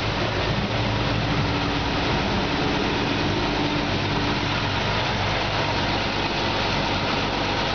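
City bus engine running with a steady low drone, heard from inside the open-windowed passenger cabin.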